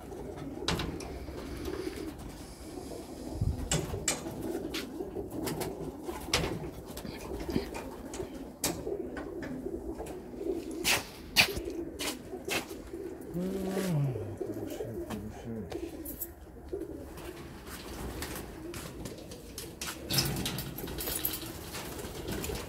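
Many domestic pigeons cooing together in a loft, a steady low chorus of overlapping coos with a few single coos standing out. Short sharp clicks and knocks are scattered through it, one louder cluster about halfway through.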